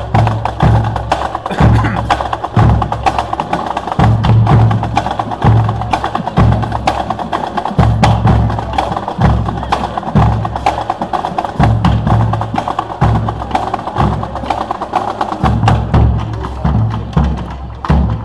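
Marching band drumline playing a street cadence: a bass drum struck about once a second under quick, sharp stick and rim clicks.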